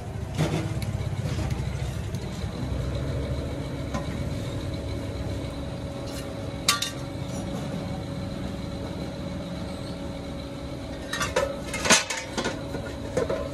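Metal pieces clinking and clanking as they are handled: one sharp clank about halfway through, then a cluster of clanks near the end, the loudest among them. Under them runs a steady low machine hum.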